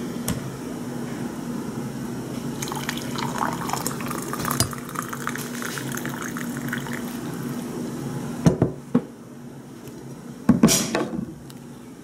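Hot coffee poured from a coffee pot into a ceramic mug, over a steady low hum. Two sharp knocks follow near the end.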